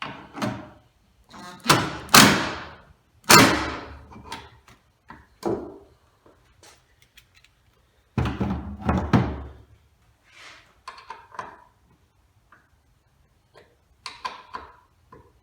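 Loud, sudden metallic clunks and knocks, each ringing out briefly, three big ones and a scatter of lighter clicks between them, as tools and tailgate hardware are worked on.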